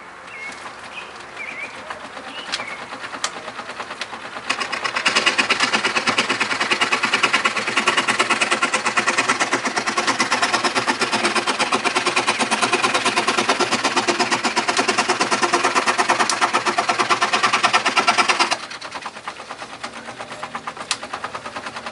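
Antique pedal-powered scroll saw running, its blade cutting a one-by board with loud, rapid rasping strokes from about four seconds in until they stop abruptly near the end. Before and after the cut, the flywheel, connecting rod and slide clatter more quietly at the same fast rhythm.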